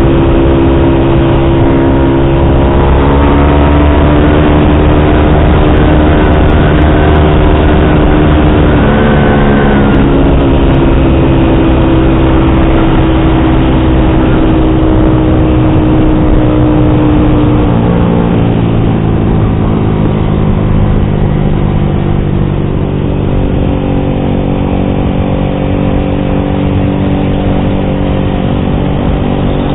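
Yamaha R15 V3's 155 cc single-cylinder engine running through an SC Project exhaust with its dB killer fitted, under way. The revs climb a few seconds in, dip briefly about nine seconds in, hold steady, then drop off around eighteen seconds and settle at a lower, steady pitch.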